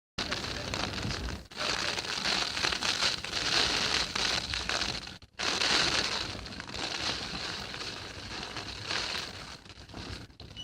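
Typhoon wind and driving rain heard through window glass, picked up by a phone pressed against the pane: a dense, crackling hiss that breaks off briefly twice, about one and a half and five seconds in, and eases a little near the end.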